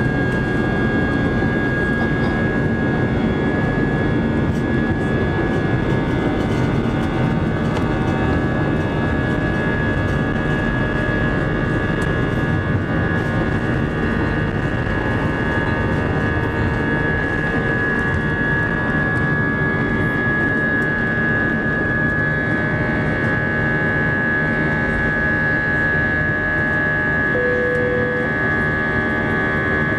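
Airbus A320 jet engines at high thrust as the airliner takes off and climbs, heard from inside the cabin. It is a steady, dense engine noise with a high, steady whine, and a second whine joins about two-thirds of the way through.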